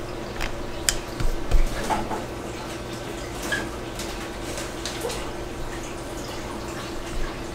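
Hand work with polymer clay and a blade on a work surface: a few small, scattered clicks and taps over a steady low hum.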